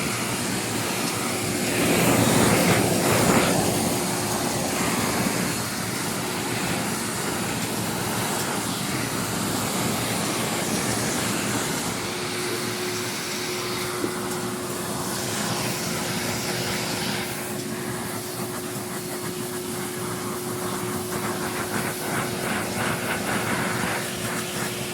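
Wet-and-dry vacuum cleaner running steadily with a constant hum while its nozzle is worked over a suede shoe to suck the dust out. The suction noise swells louder for a couple of seconds near the start.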